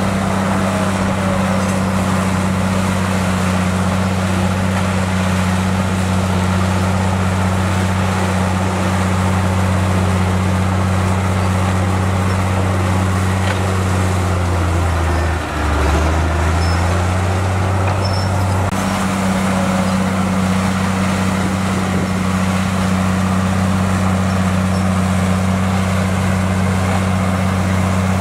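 Komatsu bulldozer's diesel engine running steadily under load. About halfway through, its pitch briefly sags as the engine lugs down, then recovers.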